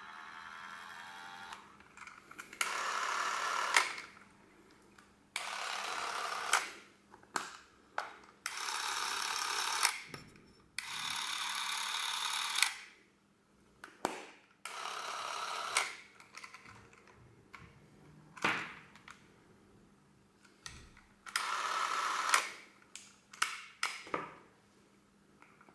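Porst Reflex ZR 422 Super 8 cine camera, made by Chinon, running its film-drive motor and shutter at 18 frames per second in short bursts of one to two seconds, about six times. Each run stops with a sharp click as the trigger is let go, and lighter handling clicks come in between.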